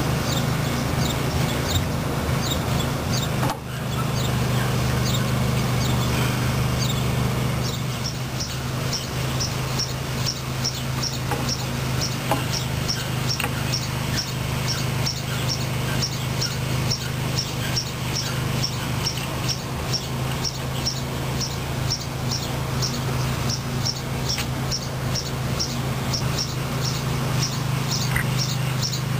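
A steady low hum, with a short, high chirp repeating about twice a second from about seven seconds in, like a small bird calling.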